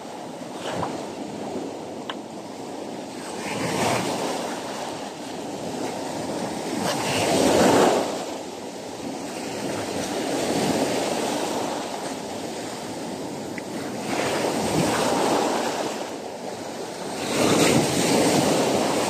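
Rough surf breaking and washing over shoreline rocks, a steady rush that swells with each wave; the loudest surge comes about eight seconds in and another near the end.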